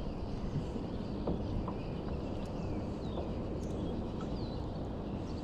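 Outdoor ambience: steady low wind rumble on the microphone, with a few faint bird chirps.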